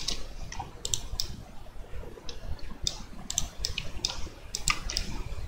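Computer mouse clicks and keyboard key presses: a scattering of light, irregular clicks over a low background hum.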